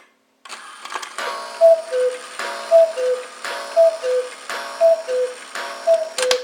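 Antique Black Forest cuckoo clock striking the hour. Five times, a ringing strike on its gong is followed by a falling two-note cuckoo call from the bellows pipes, starting about half a second in.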